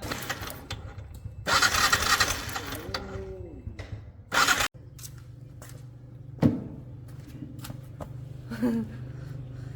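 A small motorcycle engine being started with loud noisy bursts, then settling into a steady low idle from about halfway through, with a sharp click a little later.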